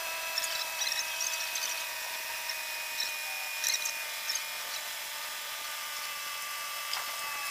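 A motor runs with a steady high whine of several pitches that drifts slightly and shifts a little near the end. Light metallic clicks and clinks from hand tools working on the engine sound over it, mostly in the first half.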